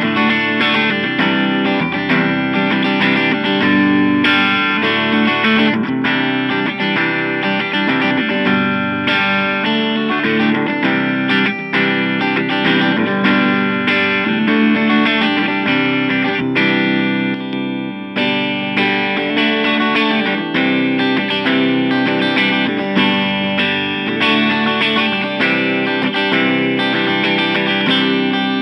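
Electric guitar played continuously through a Boss Katana Mini 7-watt practice amp, heard through a microphone in front of the amp's small speaker.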